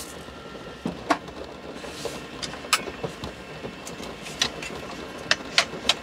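Scattered light knocks and taps as books and small objects are handled and set down, about seven in all, several of them close together near the end, over a steady background noise.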